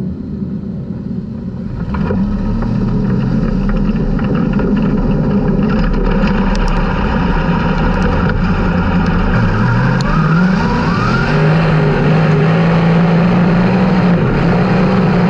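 360 sprint car's V8 engine running on a dirt track, getting louder about two seconds in; about two-thirds of the way through its pitch drops briefly and climbs again, then holds steady and high.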